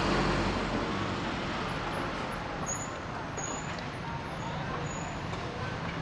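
Road traffic noise: a vehicle engine's low hum in the first second, fading into a steady wash of traffic.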